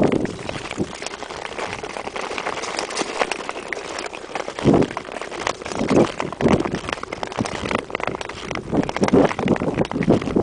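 Ice skate blades scraping and clattering over rough natural lake ice in an uneven stroke-by-stroke rhythm, full of sharp scratches and clicks.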